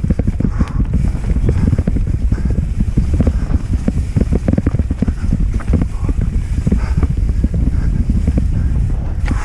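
Wind buffeting a helmet-mounted camera's microphone as a mountain bike descends a dirt trail at speed, with a constant irregular clatter of knocks and rattles from the bike running over roots and bumps.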